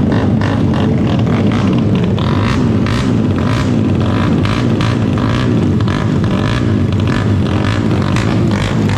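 Yamaha Exciter motorcycle's single-cylinder engine running through its exhaust, a steady, continuous exhaust note.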